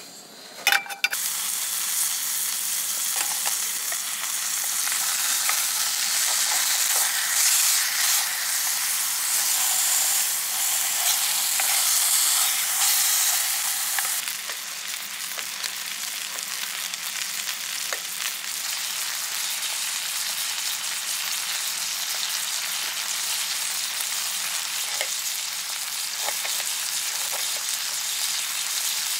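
Beef steaks searing in a frying pan over a gas camp stove, sizzling steadily after the pan is set down with a clank about a second in. The sizzle is loudest through the first half, then settles a little lower about halfway through.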